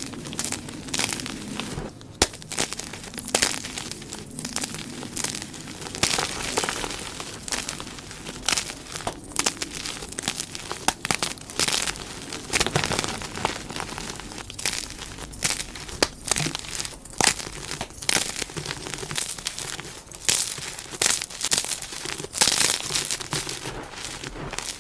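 Blocks of gym chalk being crushed and crumbled by hand, a dense run of irregular crunching crackles.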